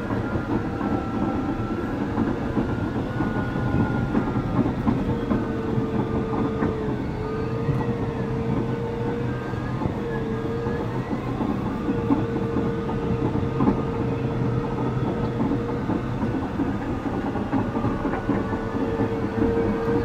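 Caterpillar D6 bulldozer working under load: its diesel engine runs with a steady deep rumble and a high whine that dips briefly now and then, over the clatter of its steel tracks.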